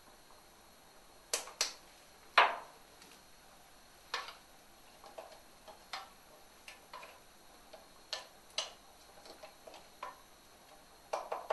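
Irregular knocks and clicks of a wooden spatula tapping against a wok as chicken pieces are stirred. The loudest knock comes about two and a half seconds in, with a quick cluster near the end.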